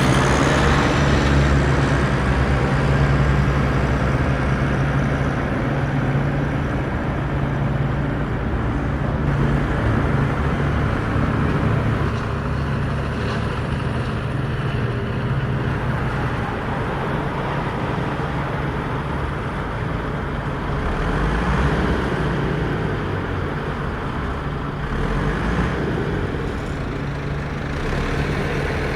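A motor vehicle's engine running steadily with a low hum, under rough rumbling tyre and road noise.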